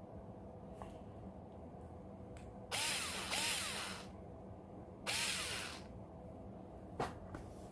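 Xiaomi Mi cordless electric screwdriver run in three short bursts, two back to back and then one more. The motor whirs up in pitch and winds down each time. A sharp click follows near the end.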